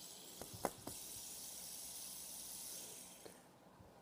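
Fidget spinner spinning fast on its bearing, giving a soft, steady whirring hiss that fades away about three and a half seconds in, with a few faint clicks in the first second.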